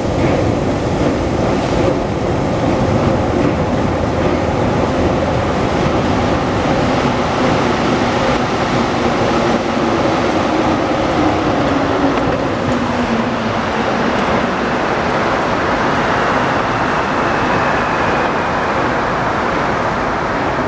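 Steady, loud mechanical rumble of metro-station escalators running. A low hum slides down in pitch about two-thirds of the way through.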